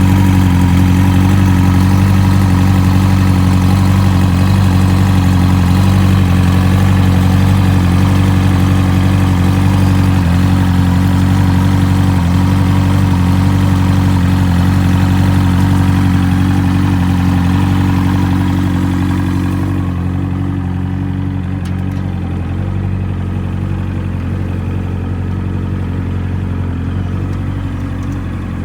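Outboard motor of a 17-foot fishing boat running steadily at idle, a low, even engine note. About two-thirds of the way through it settles and gets a little quieter, losing its higher sounds.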